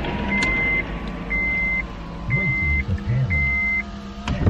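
An electronic beeper sounds four steady half-second beeps at one pitch, about a second apart, over the low running noise of a vehicle heard from inside the cabin. There is a sharp click near the end.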